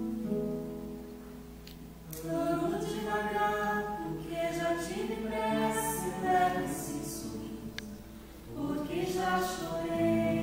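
Live acoustic guitar accompaniment with singing voices: the guitar chords sound alone for about the first two seconds, then the voices come in, pause briefly near the end, and come in again.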